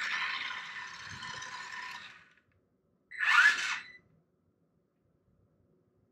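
Kyosho Mini-Z radio-controlled car's small electric motor whining as it runs on a hardwood floor, fading out about two seconds in. A second later comes a short, loud burst of motor whine rising in pitch, which cuts off about four seconds in.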